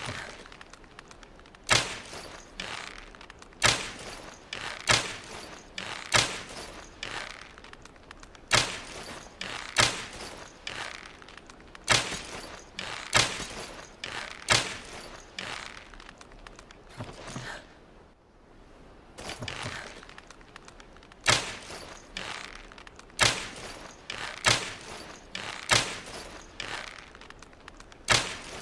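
Longbow being shot over and over: a sharp thunk roughly every second and a quarter, each with a short rattling tail, with a brief pause about two thirds of the way through.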